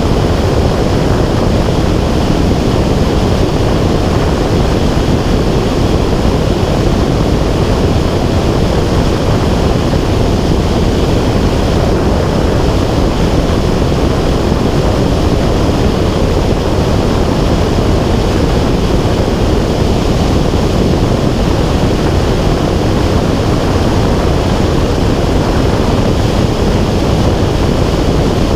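Steady, loud in-flight noise from a small aircraft carrying an action camera: a rushing of wind mixed with motor sound, unchanging throughout.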